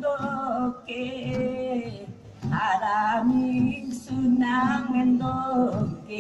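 Singing, led by a woman's voice in phrases of about a second with short breaks, over a steady lower held note.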